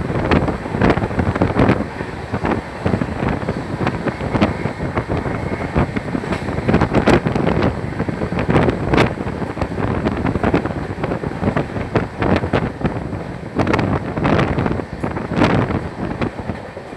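Express train running at speed, its coach wheels clattering irregularly over rail joints and points. Wind buffets the microphone.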